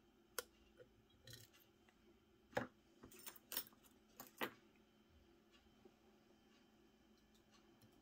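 Lock picks clicking and scraping against the pins of an M&C Matrix high-security lock: a string of sharp metallic clicks, the loudest about two and a half seconds in and a quick cluster just after, dying away about halfway through.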